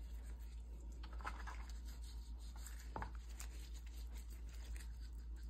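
Faint rubbing and scratching of gloved hands working dry seasoning into the skin of whole red snappers, with one small knock about three seconds in, over a low steady hum.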